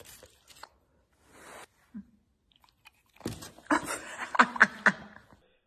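Corgi chewing a bite of food taken from a hand: a few faint mouth clicks at first, then a run of loud wet chewing and smacking in the second half.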